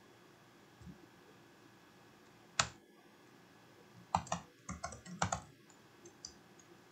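Computer keyboard typing: a single keystroke, a sharper one about two and a half seconds in, then a quick run of keystrokes about four seconds in.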